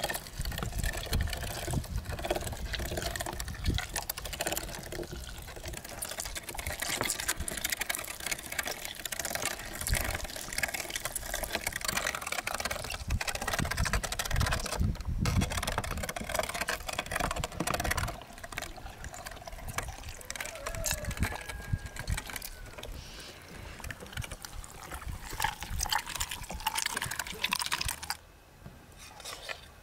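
Hand-cranked metal meat grinder being turned as it grinds raw meat, a steady run of clicks and scraping that stops about two seconds before the end.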